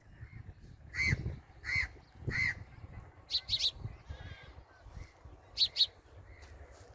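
Birds calling: three harsh calls in quick succession, then short high chirps in pairs.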